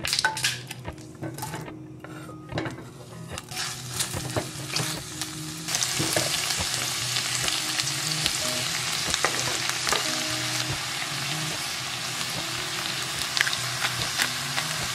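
Sliced onions and mushrooms sizzling in hot olive oil in an enameled cast-iron pan, with the clicks and scrapes of a spatula stirring them. The sizzle comes in abruptly about six seconds in and stays steady; before that there are only light taps and clicks.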